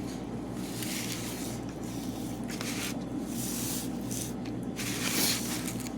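Soft rustling and handling noises from eating, with a few brief hissy scrapes, over a steady low background hum.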